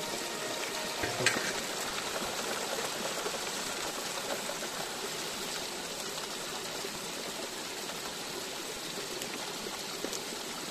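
Creek water running steadily down a metal sluice box and pouring off its end into a pool. A brief knock about a second in.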